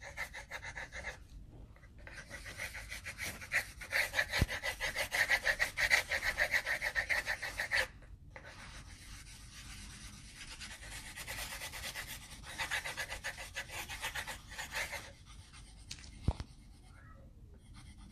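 Green colored pencils shading on paper over clipboards: quick back-and-forth scratchy strokes in two runs, a few seconds each, with a short pause between them, and one small tap near the end.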